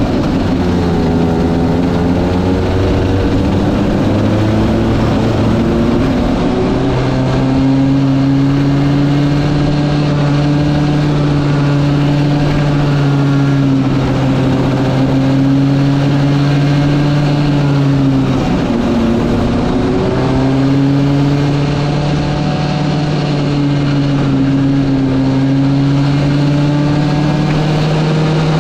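Go-kart engine running at a steady, high speed. About nineteen seconds in, its pitch drops briefly and climbs back up. In the first few seconds a second engine note rises and falls alongside it.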